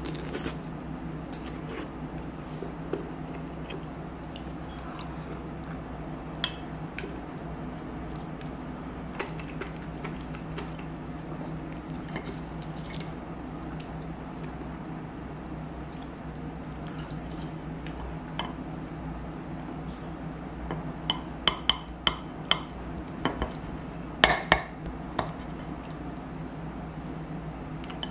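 Chopsticks and a spoon clicking and tapping against ceramic bowls and a plate while eating: scattered single clicks, then a quick run of taps about three-quarters of the way through, over a steady low hum.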